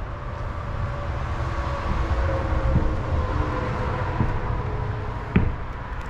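A vehicle passing on the road outside, a steady rumble that swells towards the middle with a faint whine drifting slightly down in pitch. Footsteps sound on wooden floorboards and stairs, with a sharp knock about five seconds in.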